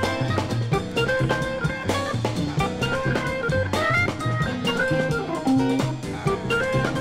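Instrumental soul-jazz groove played from a 7-inch 45 vinyl record: drum kit keeping a steady beat under guitar and bass, with no singing.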